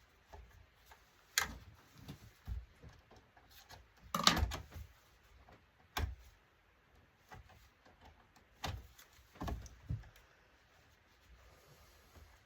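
Scattered knocks and clicks of monitor parts and tools being handled while the monitor is taken apart, loudest in a short cluster about four seconds in.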